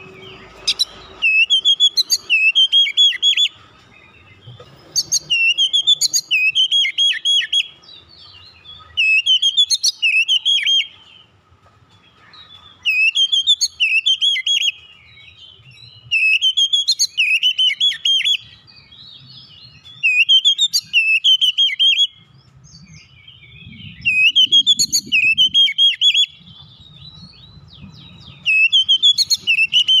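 Oriental magpie-robin singing. It gives the same phrase about eight times, roughly every three to four seconds: rising whistled notes running into a quick trill, each phrase about two seconds long. This is the tight, continuous song that keepers call "ngeroll".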